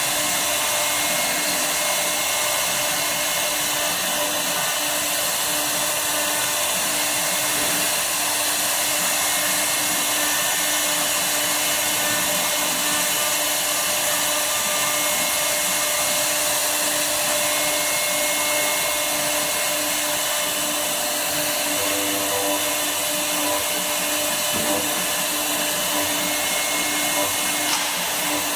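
CNC wood router running steadily, its spindle giving a constant whine of steady tones over an even hiss.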